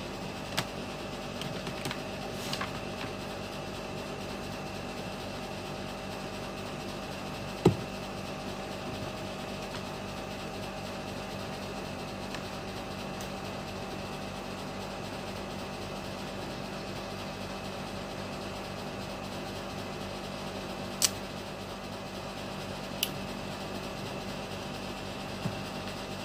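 A steady background hum and hiss, broken by a few small clicks and one duller knock about eight seconds in, from capacitors and meter probes being handled on the work mat.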